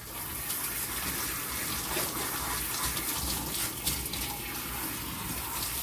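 Handheld tub sprayer spraying water onto a standard poodle puppy's wet coat, a steady hiss of spray rinsing the fur.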